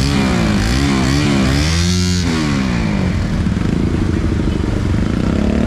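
Motorcycle engines in a dense pack of motorbikes and scooters. One is revved up and down several times over the first three seconds, then a steadier engine note rises near the end.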